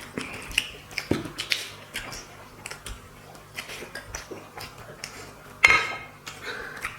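Eating sounds: scattered clicks and smacks of hands and mouths at plates of curry and rice. About two-thirds of the way in there is one short, loud, high-pitched sound.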